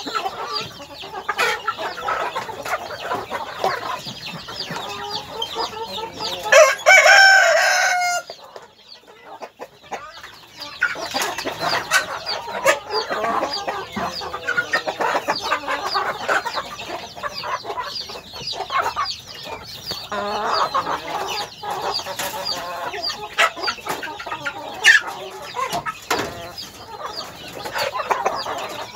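A flock of chickens clucking continuously, with one loud rooster crow about seven seconds in.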